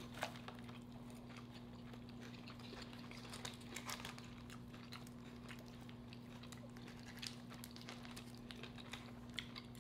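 Faint chewing and wet mouth clicks of a person eating close to the microphone, over a steady low electrical hum.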